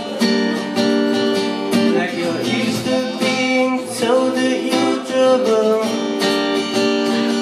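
Acoustic guitar strummed live, with a man singing along in long held notes that bend in pitch now and then.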